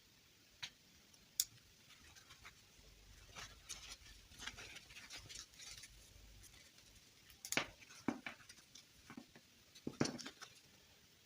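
Faint handling noise of small toy items: scattered light clicks and taps with soft rustling, the sharpest clicks in the second half.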